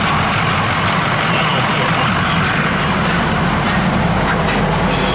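Ford 6.0L Power Stroke V8 diesel idling steadily with a low, even hum, heard from inside the cab with the driver's door open.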